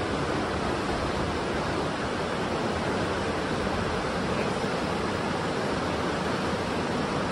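Whitewater river rushing steadily over rapids, an even unbroken noise.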